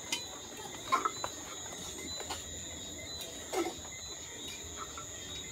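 Crickets trilling steadily at night in two high pitches, with a few faint knocks and a couple of brief faint voices about a second in and past the middle.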